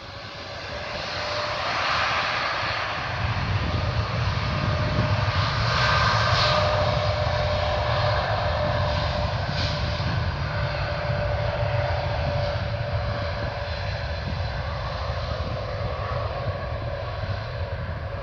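Airliner's jet engines running at high power as the aircraft moves along the runway. The sound swells over the first couple of seconds into a steady whine over a deep rumble.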